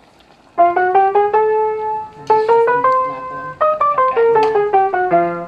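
Background piano music: a melody of single struck notes that starts about half a second in.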